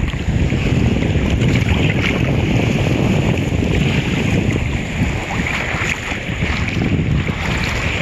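Water sloshing and splashing around a camera dipped at the surface of shallow water while someone wades, with wind buffeting the microphone: a loud, steady, rough rumbling wash with small splashes through it.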